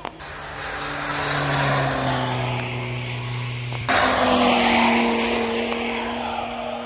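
Motor vehicle engine noise whose pitch slowly falls, then breaks off abruptly about four seconds in for a louder stretch of engine noise at a steadier pitch.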